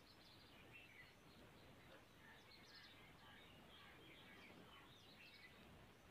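Near silence: faint background hiss with scattered faint high chirps.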